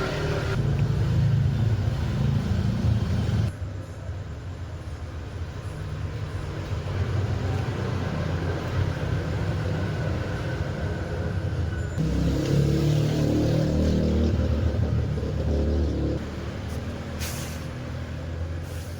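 Low rumble of motor vehicle engines running nearby, growing louder and fading in stretches of a few seconds.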